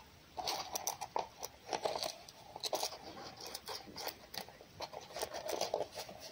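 Red fox chewing and biting food, a run of quick, irregular crunches and clicks.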